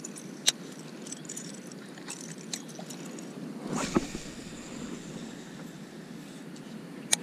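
A steady low wash of water and wind around a fishing kayak, with a few sharp clicks and knocks from handling the rod and reel. The loudest knock comes about four seconds in, and another click comes near the end.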